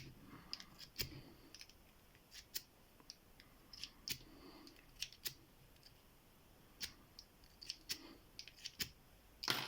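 Faint, irregular clicks and scrapes of a metal lock pick working inside the keyway of a small brass padlock.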